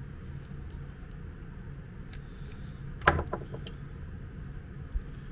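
Small clicks from handling a plastic mains plug and a screwdriver, with one sharp clack about three seconds in and a lighter knock near the end, over a steady low hum.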